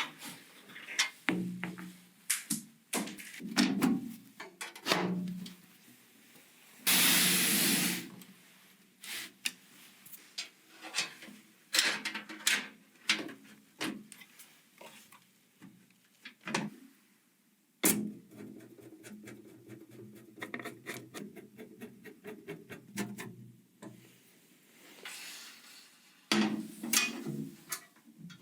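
Hands fitting hardware parts during a PC build: scattered sharp clicks, knocks and rubbing. There is a hiss lasting about a second a quarter of the way in, and a fast run of fine ticks in the middle.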